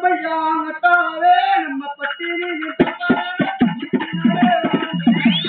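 Live folk music for a stage performance: a voice sings a held, bending line, then about three seconds in a drum comes in with a fast run of strokes under a steady high piping tone.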